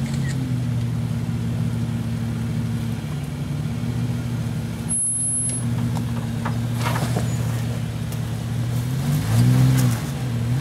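Jeep Wrangler engine running low and steady as the Jeep crawls over snowy rock ledges, with two short revs near the end. The sound cuts out briefly about halfway through.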